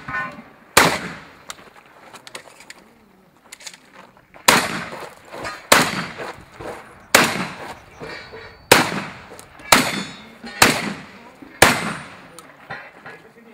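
Shotgun fired in a string of about eight loud shots, each with a short echo: one shot, a pause of several seconds, then shots roughly a second apart, with a weaker shot near the end.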